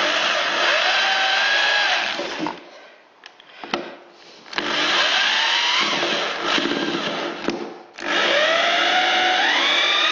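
Electric drill driving 80 mm self-tapping screws into wooden floorboards: the motor runs three times with short pauses between, each run with a whine that rises in pitch. A few light clicks fall in the first pause.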